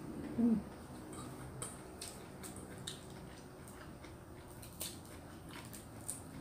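A person chewing a mouthful of food with small, wet mouth sounds, with a few faint clicks of fingers picking at the food and dish. About half a second in there is a short hummed voice sound.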